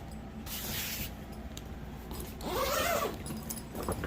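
A zipper on a fabric grow tent being run, a scratchy zipping with rustling fabric. Near three seconds in comes a louder stretch with a short pitched sound that rises and falls.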